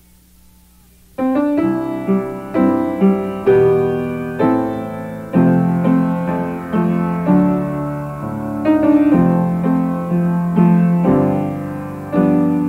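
Solo piano playing a slow song introduction: notes and chords struck every half second to a second, each ringing and fading, beginning about a second in after a quiet start.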